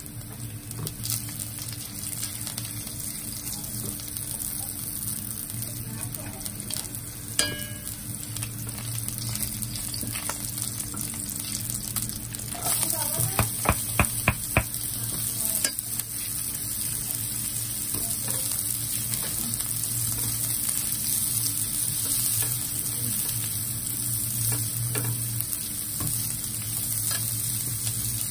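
Chopped garlic and cumin seeds sizzling steadily in hot oil in a nonstick frying pan. About 13 seconds in, chopped onions go into the pan with a quick run of sharp knocks, and the sizzling grows louder as they are stirred with a spatula.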